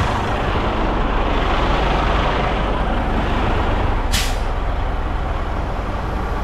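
Semi truck's diesel engine idling, with a short sharp burst of air hiss from its air system about four seconds in.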